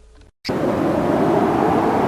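A loud, steady rushing noise cuts in abruptly about half a second in, after a brief silence, and holds steady.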